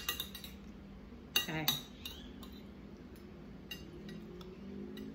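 A metal spoon and fork clink lightly against a plate, a few times near the start, as a mouthful of rice is scooped up.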